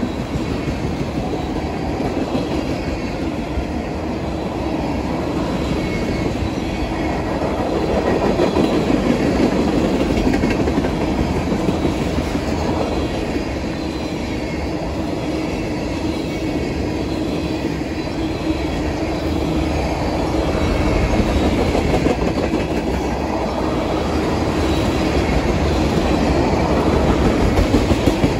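Freight train of loaded tank cars rolling past close by: the steady noise of steel wheels running over the rails, a little louder about a third of the way in and again near the end.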